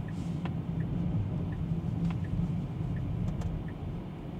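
Road and tyre noise inside the cabin of an electric Tesla Model 3 under way: a steady low rumble. A faint short tick repeats about every three-quarters of a second.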